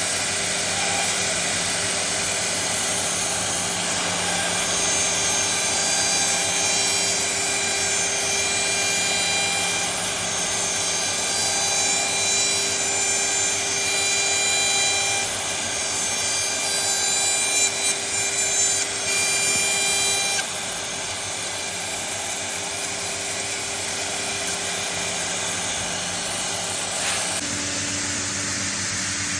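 CNC router spindle cutting into MDF: a steady whine with continuous cutting noise. The highest tones drop out and the sound eases slightly about two-thirds of the way through.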